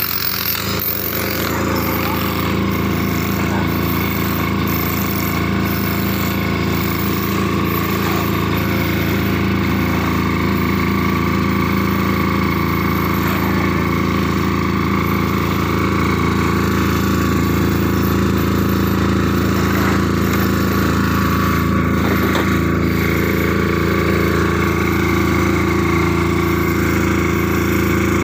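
A portable generator engine running steadily while an electric chipping hammer works the concrete, roughening the old surface so the new cement mortar will bond.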